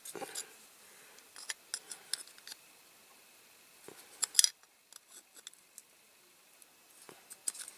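Small metal clicks and ticks of flat pliers gripping and bending thin die-cast metal, in scattered clusters with a louder group about four seconds in and another near the end.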